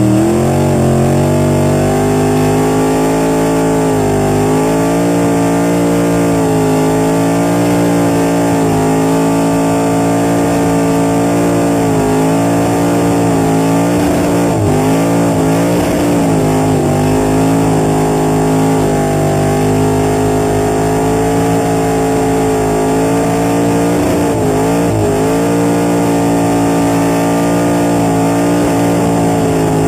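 Burnout car's engine held at high, steady revs during a burnout, the pitch wavering slightly and dipping briefly now and then.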